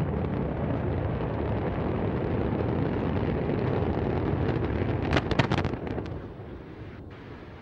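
Deep, steady rumble of the Antares rocket's explosion and fireball after it fails just after liftoff, with a quick run of sharp cracks about five seconds in; the rumble then fades.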